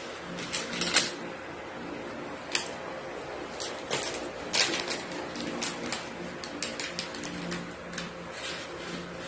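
Gloved hands mixing seasoned raw chicken pieces in a plastic basin: irregular clicks, squelches and plastic-glove rustles, the loudest about a second in.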